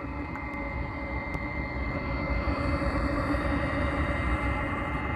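Webasto ThermoTop C water heater running on a bench test: a steady high whine over a rushing noise, growing louder over the first couple of seconds.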